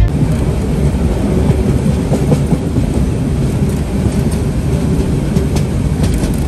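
Passenger train running, heard from inside the carriage: a steady low rumble of the moving train with the wheels clacking now and then over the rail joints.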